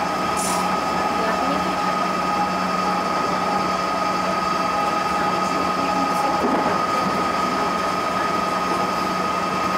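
JR Central 211 series 5000 subseries electric train running along the track, heard from inside the driver's cab: a steady running noise with a constant high whine, and a lower tone that fades out about two-thirds of the way through.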